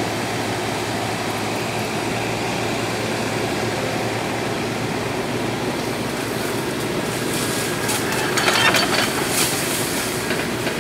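Diesel engine of a Komatsu PC30 mini excavator running steadily at work, with a stretch of metallic clatter about seven to ten seconds in.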